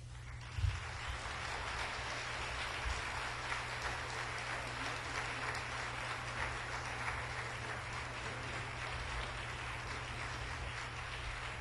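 Lecture audience applauding, a steady clapping that begins about half a second in.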